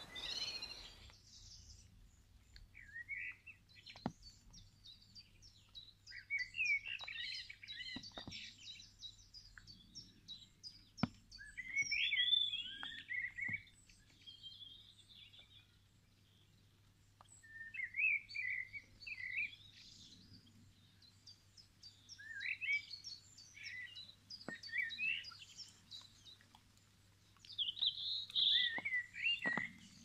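Songbirds singing in warbled phrases of a couple of seconds, with pauses of a few seconds between them. A faint steady low hum and a few faint clicks lie underneath.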